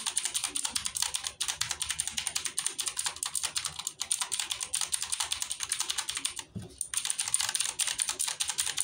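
Fast typing on a Sprange MK-11 mechanical keyboard with blue switches: a dense run of rapid clicking keystrokes, with a short break about two-thirds of the way through.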